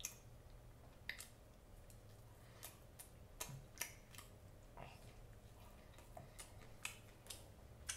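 A person chewing small hamburgers with the mouth closed: quiet, irregular wet mouth clicks and smacks, about a dozen scattered through.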